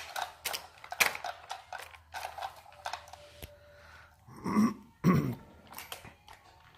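Plastic toy train and carriages clicking and knocking against plastic toy track as a child handles them, with two louder short throaty noises a little past the middle.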